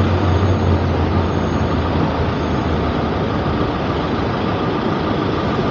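Motorhome's engine running and its tyres rolling at low speed, heard from inside the cab on a ferry's enclosed car deck. A steady low hum eases about three seconds in.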